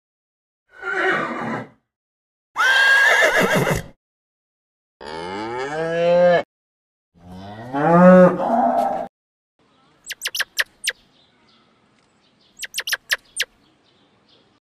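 A run of animal calls: an elephant trumpeting twice, the second loud and shrill, then Holstein cows mooing twice in long, drawn-out calls, then a squirrel chirping in two quick bursts of high-pitched chirps near the end.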